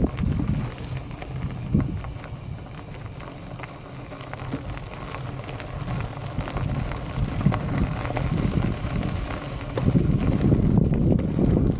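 Bicycle tyres rolling and crunching over a gravel path, with wind buffeting the camera microphone; it gets louder and rougher near the end.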